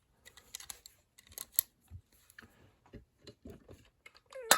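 Metal padlock and tools being handled: scattered light clicks and clinks, ending near the end in one sharp metallic clank that rings briefly.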